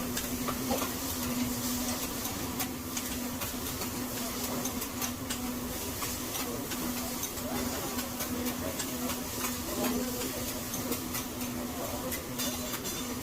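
Food sizzling on a hibachi (teppanyaki) griddle, a steady hiss with scattered sharp clicks of metal spatulas, over a steady low hum.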